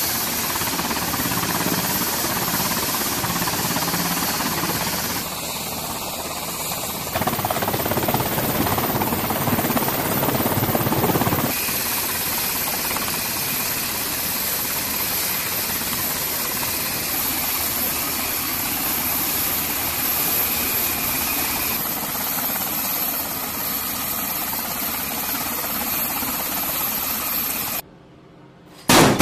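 Navy Seahawk helicopter turning on deck: a steady turbine whine over dense rotor and engine noise, shifting abruptly a few times, then dropping away near the end.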